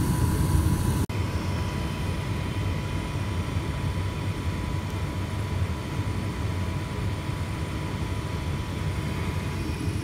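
2004 Trane 80,000 BTU gas furnace running with its burners lit and blower on: a steady low rumble with a thin steady hum. A brief dropout about a second in, after which it is a little quieter.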